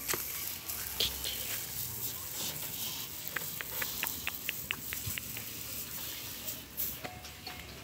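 Dry rice straw rustling and crackling as a young cow pulls at it and chews it. A quick run of about a dozen high ticks comes a few seconds in.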